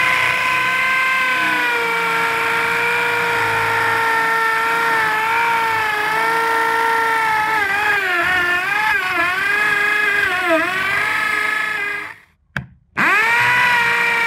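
Restored Black & Decker BD561 400-watt electric drill boring into a rendered masonry wall with a masonry bit: a steady motor whine whose pitch sags and wavers several times as the bit bites under load. Near the end it stops, a click follows, and it starts up again about a second later.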